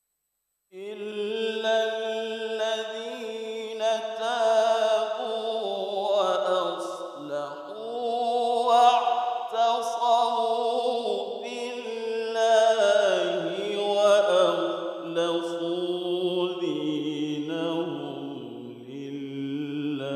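A man reciting the Quran in the melodic tilawah style: a slow vocal line of long held, ornamented notes that rise and fall. It begins about a second in, after a brief silence.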